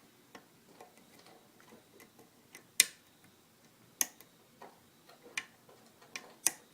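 Metal hook pick working the pins of a five-pin pin tumbler challenge lock under a tension wrench: scattered, irregular small clicks, with two sharper clicks near the middle, as a pin is sought that will set.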